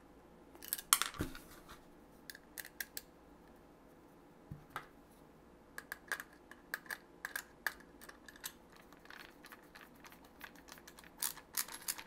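A screw being driven by hand with a Milwaukee screwdriver to fasten two gangable steel switch boxes together, with faint, irregular metallic clicks and ticks of the screw, driver and sheet-steel boxes. The clicks are sparse at first and come closer together from about halfway through.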